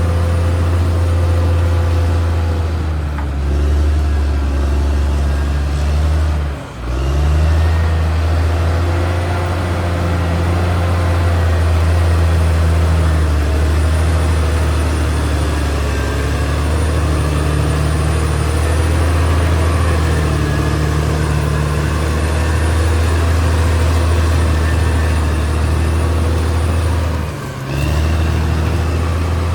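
Caterpillar D6R XL bulldozer's diesel engine running steadily, its pitch rising and falling a little as the load changes. The sound drops out briefly twice, about seven seconds in and near the end.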